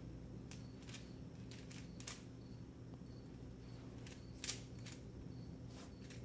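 Plastic 3×3 speed cube being turned during a solve: scattered short clicks of the layers turning and snapping into place, coming in small clusters, the loudest about four and a half seconds in, over a steady low hum.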